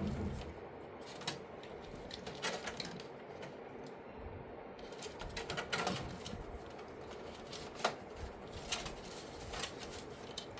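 Hands working a power-supply cable's plastic connector into its socket: scattered light clicks, taps and rustles at irregular intervals.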